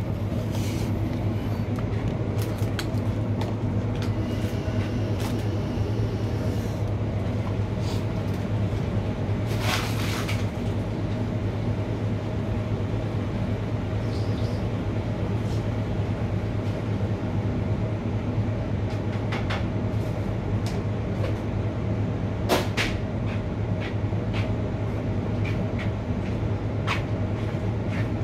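Steady low electrical hum of running restaurant kitchen machines, with scattered clicks and knocks.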